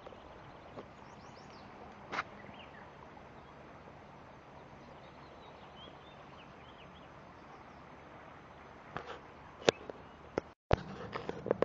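Outdoor ambience: a steady rushing noise with scattered small bird chirps and a few sharp clicks, cut by a brief dropout near the end.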